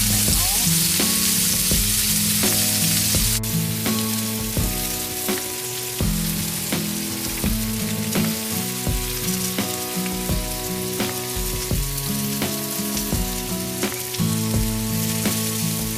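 Food sizzling as it cooks, under background music with a steady beat. The sizzle is loudest for the first three seconds or so, then drops suddenly and carries on more faintly.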